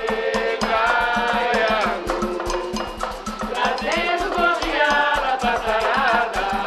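Samba music: voices singing a melody together over a fast, even percussion beat with regular low drum pulses.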